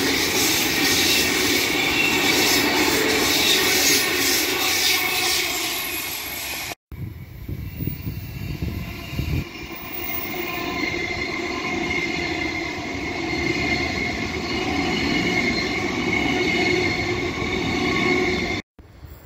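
Queensland Rail electric multiple-unit trains at a station platform. First a train passes close by with loud, dense rail running noise. After a sudden break, a second train runs in alongside the platform with a rumble and steady high tones held over it.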